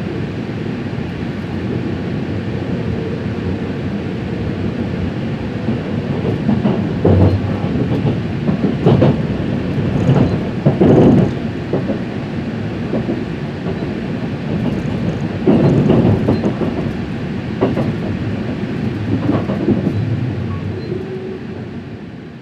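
A train passing: a steady rolling rumble with a series of heavy wheel knocks, often in pairs, over several seconds mid-way, dying away at the very end.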